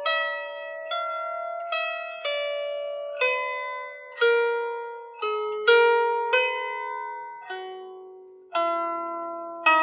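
Lyre harp played slowly, single plucked notes about a second apart, each ringing out and fading before the next.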